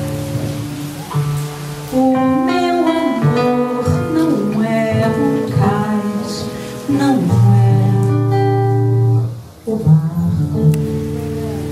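A woman sings into a microphone, accompanied by a plucked acoustic guitar. The guitar plays alone for about the first two seconds before the voice comes in.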